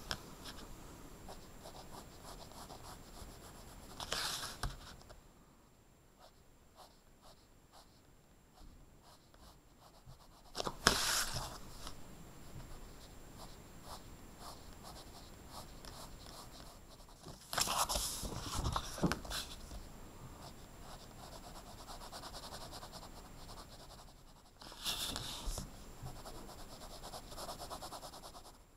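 Coloured pencil scratching across paper in quick back-and-forth shading strokes. Four brief, louder scrapes break in at intervals of about seven seconds.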